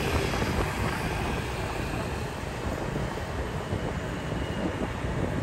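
Steady low wind buffeting on the microphone with road noise from a motorbike ride at cruising speed.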